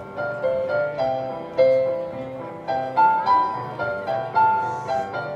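Instrumental music: a melody of struck notes that ring and fade, over sustained chords.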